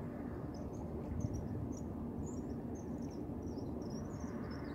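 Steady low outdoor rumble of wind on the microphone, with many short, faint high-pitched chirps scattered across it.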